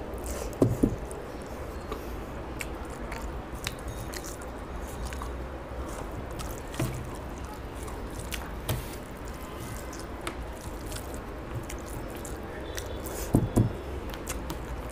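Eating rice and fish curry by hand: wet, squishy mixing of rice in the tray and mouth sounds of chewing, with many small clicks. Two louder double knocks come about a second in and again near the end.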